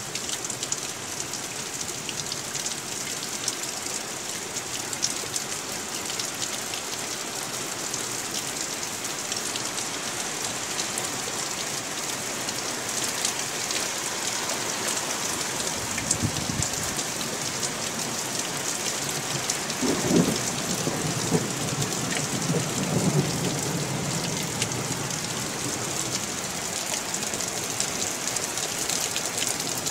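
Heavy downpour falling steadily, with water running off a roof edge. Thunder rumbles about halfway through and again a few seconds later, in a longer roll.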